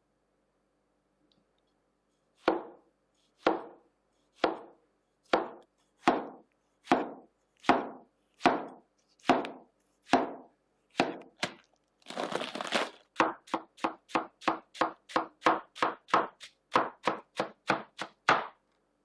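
Chef's knife cutting on a plastic cutting board: slow, even slices through tomatoes about once a second after a short silence. Then a burst of crisp rustling and faster chopping through lettuce, about two cuts a second.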